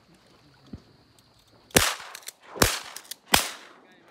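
Three shotgun shots fired at ducks in quick succession, a little under a second apart, each trailing off briefly.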